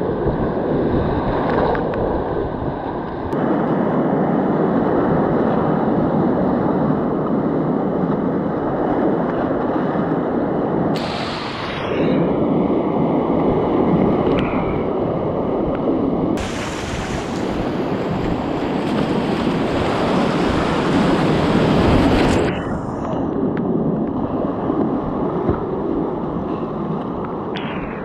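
Whitewater rapids rushing around a kayak, heard through an action camera's microphone with wind noise on it. The rushing changes its character abruptly several times.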